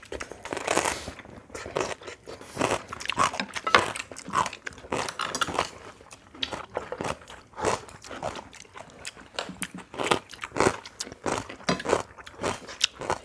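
People chewing and biting through a meal of Korean rice bowls, a run of short wet smacks and clicks at close range.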